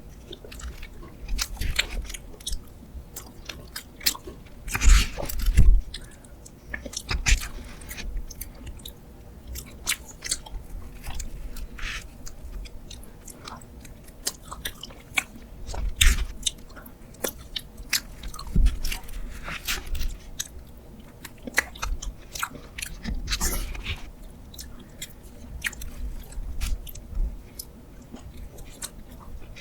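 Close-miked chewing and crunching of a spoonable ice box cake, with irregular sharp clicks and a few louder crunches.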